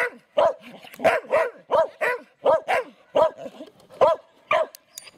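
A dog barking repeatedly at a steady pace, about two to three short barks a second.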